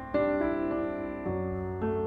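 Background piano music: struck notes and chords ringing and fading, with new chords coming in partway through.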